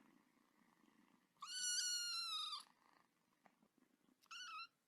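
A cat meowing: one long high meow about a second and a half in, then a short wavering meow near the end.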